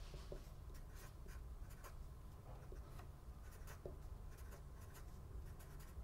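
Sharpie felt-tip marker writing on paper: a faint run of short, irregular scratching strokes as numbers are written, over a steady low hum.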